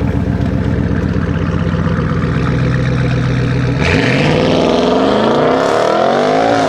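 Tuned Audi RS7 Sportback C8's twin-turbo 4.0 V8, breathing through catless downpipes, running steadily at low revs. About four seconds in, its pitch climbs smoothly for nearly three seconds as the revs rise.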